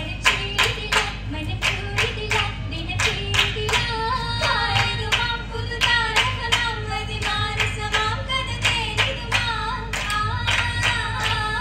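Oppana: a troupe of girls clapping their hands in unison, about three claps a second, as the beat for a Mappila song sung over it.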